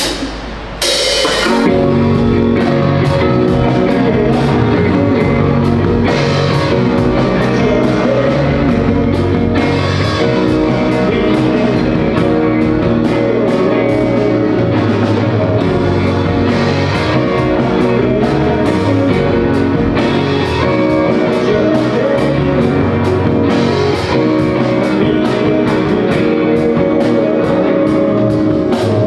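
Rock band playing a chorus on electric guitar and drum kit, coming in about a second in and carrying on loud and steady.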